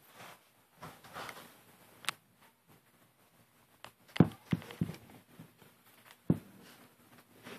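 Camera handling noise: a few sharp knocks and clicks with light rustling as the handheld camera is moved along the floor, the loudest knocks in the second half. A faint steady hum comes in about halfway through.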